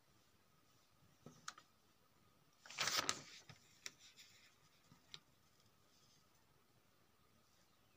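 A paper notebook page being turned: a short rustle of paper about three seconds in, with a few light taps and clicks shortly before and after, over faint room tone.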